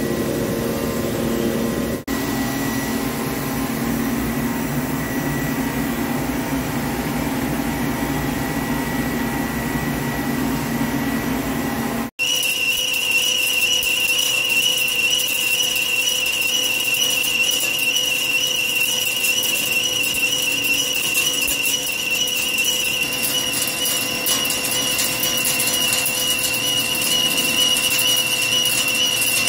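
Heavy-duty Hankook CNC lathe running with a steady hum. About twelve seconds in the sound cuts abruptly, and a carbide insert turning the spinning forged-steel roll spindle gives a steady high whistle over a hiss.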